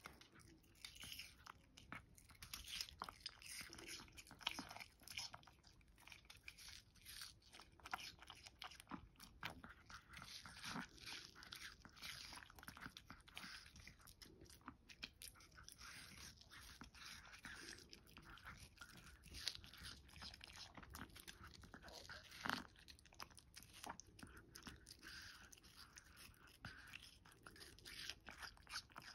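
Long-coat Chihuahua biting and chewing a wedge of watermelon: a long run of small, quick crunches and mouth clicks, faint overall, with a couple of louder bites about four seconds and about twenty-two seconds in.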